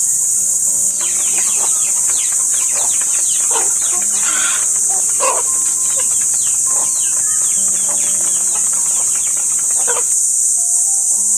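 Free-range native chickens calling, many short falling calls overlapping, starting about a second in and stopping near the end. Beneath them runs a steady high-pitched insect drone.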